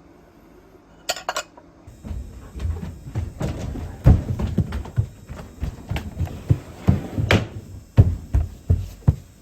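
A few light clicks, then from about two seconds in a rapid, irregular run of knocks and thuds with some sharp clacks, like things being handled and set down.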